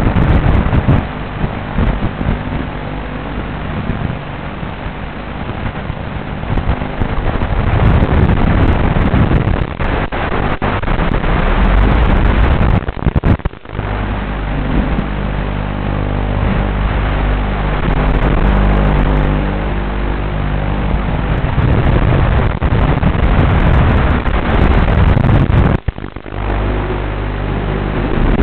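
FPV quadcopter's electric motors and propellers running, the pitch rising and falling with the throttle, under a steady hiss. The sound cuts out briefly twice, about halfway through and near the end.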